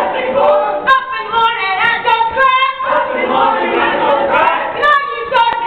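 A large group of voices singing and shouting together, many pitches overlapping, with a few sharp clicks scattered through.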